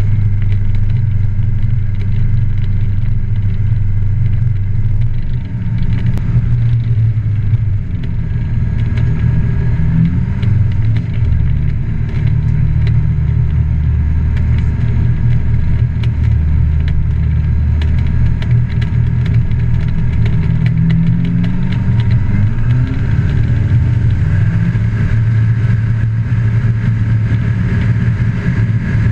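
Propeller engine of a Just Aircraft Highlander light plane running at low power while it taxis on grass, heard from inside the cockpit. The steady engine hum rises and falls in pitch a couple of times as the power changes.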